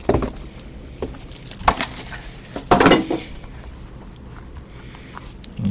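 Cardboard trading-card boxes handled and set down on a wooden desk: a few light knocks and taps, with one louder thump about three seconds in.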